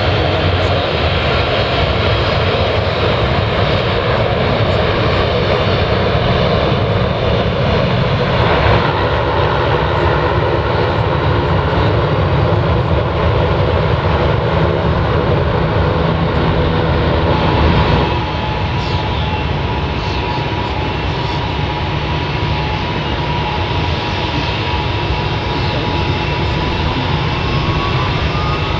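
Ilyushin Il-76MD's four Soloviev D-30 turbofans running at power on the runway during a pre-take-off engine warm-up: a loud, steady jet noise with several whining tones. The sound shifts about a third of the way in and drops slightly past halfway, and near the end a whine rises in pitch.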